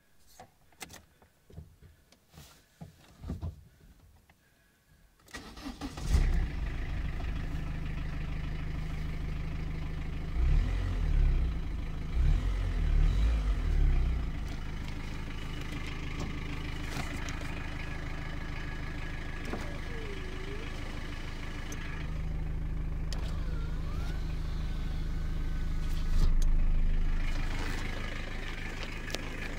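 A few light clicks, then the Citroën Saxo's 1.5 diesel engine cranks and catches on a cold start about five seconds in, settling into a steady idle. It is revved in several short bursts around ten to fourteen seconds in, then idles again.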